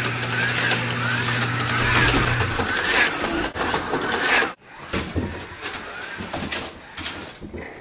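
A loud, engine-like sound with repeated rising and falling whines cuts off sharply about four and a half seconds in. After that, toy slot cars whir quietly around a plastic slot-car track, with light clicks and knocks.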